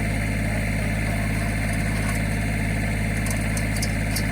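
Tractor engine running at a steady idle-like speed.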